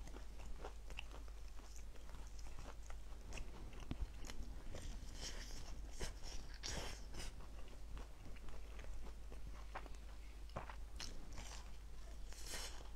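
Close-miked biting and chewing of a large fried chicken cutlet: irregular crunches and crackles.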